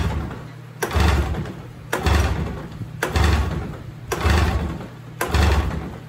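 Snowmobile recoil starter being pulled about once a second, six pulls in a row, cranking the Polaris 770 big-bore two-stroke engine with the choke on; it does not catch. A steady low hum runs underneath.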